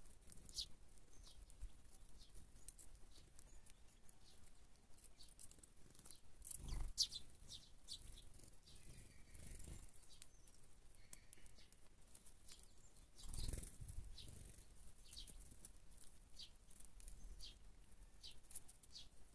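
Sparrows chirping faintly, with many short high cheeps scattered throughout. Two brief low rumbles about seven and thirteen seconds in are the loudest sounds.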